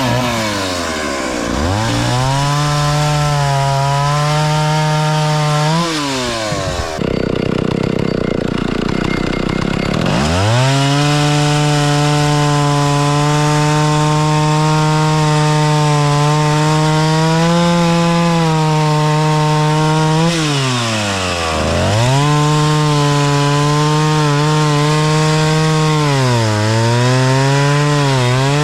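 Vintage 1960s Stihl 041 AV two-stroke chainsaw, about 61 cc, running at high revs while cutting wood. Its engine note drops and climbs back about four times, with a rougher, lower stretch about seven seconds in.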